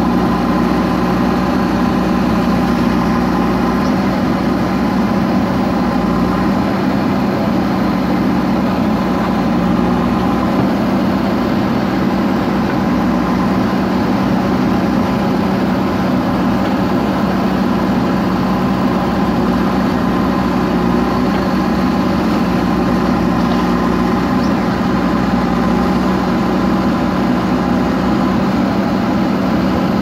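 Diesel engine of a JCB 3DX backhoe loader running steadily at an even speed as the machine works.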